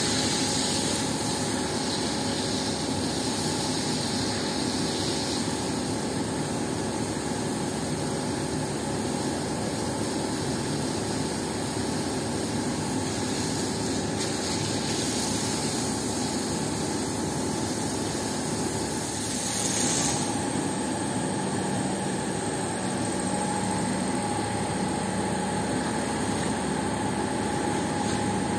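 Steady mechanical drone of a motor-driven water pump together with the hiss of a high-pressure water jet from a hose spraying onto a wet rug and tiled floor. The sound shifts briefly about two-thirds of the way through.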